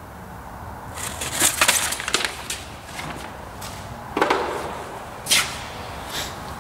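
Hand handling at a milling-machine vise: a sheet of paper rustling as it is pulled out from behind the cutter, then a knock about four seconds in and a sharp click a second later as the steel square and tooling are moved away.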